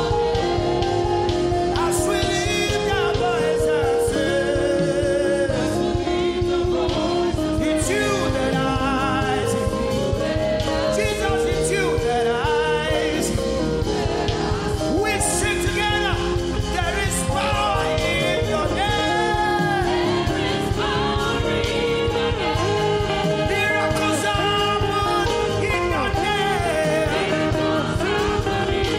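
Live gospel worship song: several singers on microphones sing a melody over amplified band accompaniment with a steady beat.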